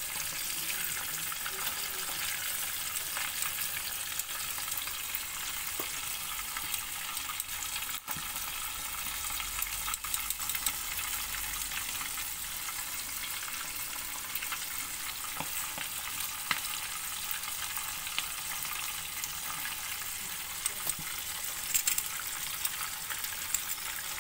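Small tilapia deep-frying in hot oil in a pan: a steady sizzle with scattered crackles and a few louder pops near the end.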